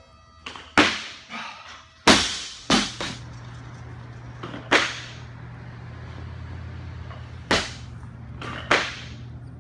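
Loaded barbell and bumper plates clanking and slamming in a weightlifting gym: about six sharp cracks, irregularly spaced, each ringing out briefly. A steady low hum starts about two seconds in.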